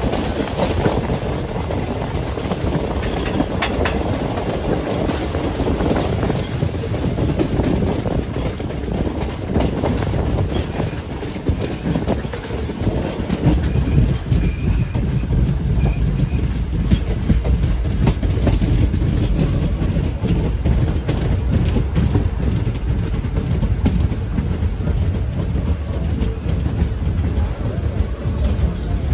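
Passenger train heard from the side of a moving coach: a steady rumble with wheels clattering rapidly over the rails. About two-thirds of the way in a thin, steady high-pitched squeal joins in as the train draws into a station.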